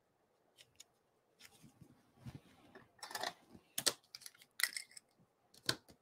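Roll of strong double-sided adhesive tape being handled and torn by hand: a few light clicks and rustles, then a run of short sharp rips in the second half, the loudest about four seconds in.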